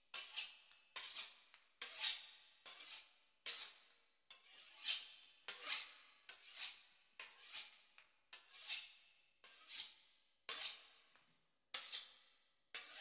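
A knife sawing back and forth through the crisp pastry crust of a beef Wellington, a dry rasp on each stroke, about one stroke every 0.7 s.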